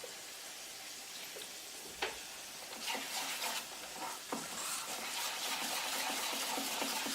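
Sweet plantain slices frying in vegetable oil with a steady sizzle, while a utensil stirs thick fish-batter in a bowl, giving a few clicks and scrapes.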